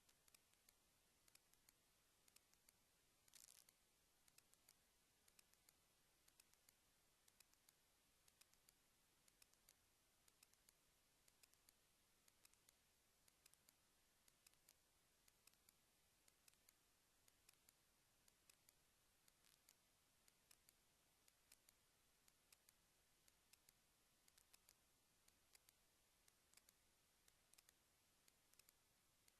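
Near silence: faint hiss with many small, irregular clicks and ticks.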